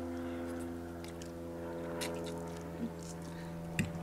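People slurping and chewing noodles, with a few faint clicks, over a steady hum.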